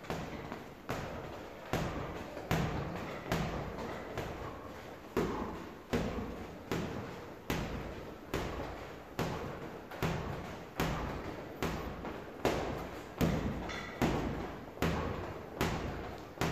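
Boxing glove striking a hanging heavy bag with light lead jabs, one thud about every three-quarters of a second in a steady rhythm, each dying away in the room's echo.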